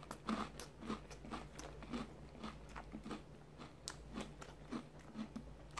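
A person chewing a mouthful of crunchy Boo Berry cereal: a run of small, irregular crunches, two or three a second.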